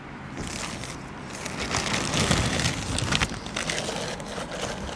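Packaging crinkling and rustling as the camcorder is unwrapped from its protective sheet and plastic bag by hand, a run of irregular crackles that gets louder about two seconds in.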